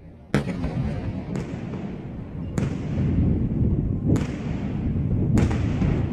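Aerial fireworks shells bursting overhead: five sharp bangs about a second apart, with a continuous rolling rumble between them.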